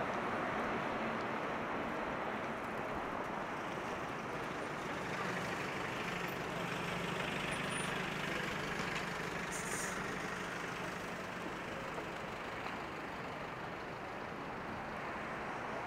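Steady city road traffic, with an engine hum that comes up about five seconds in and fades out around eleven seconds, and a brief high hiss near ten seconds in.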